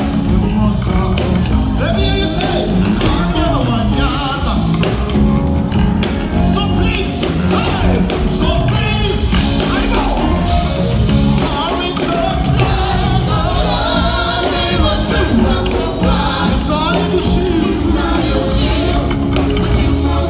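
Live gospel praise-and-worship music: a man singing into a microphone over a band with electric guitar, loud and continuous through the PA.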